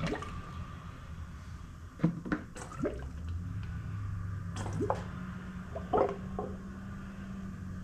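Automatic transmission fluid being poured from a gallon jug, glugging in several quick gulps with a rising pitch, over a steady low pouring sound.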